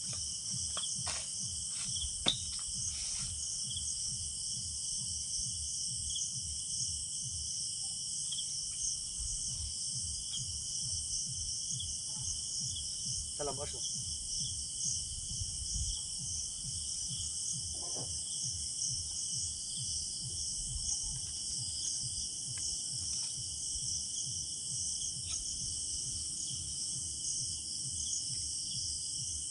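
Crickets and other night insects chirring in a steady, high, unbroken chorus over a low rumbling noise, with a few faint clicks in the first few seconds.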